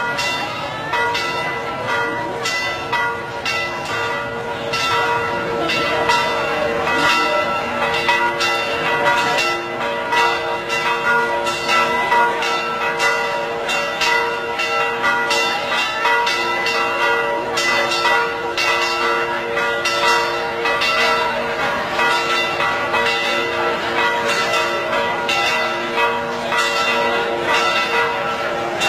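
Church bells ringing continuously, strokes following each other a few times a second over a lasting, overlapping ring.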